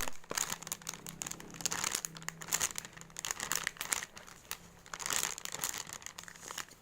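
Plastic wrapping crinkling in irregular bursts as a squishy toy is handled and squeezed, over a faint steady low hum.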